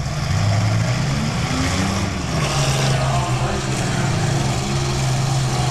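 Several demolition-derby minivan engines running and revving together, their pitch rising and falling as the vans push against each other.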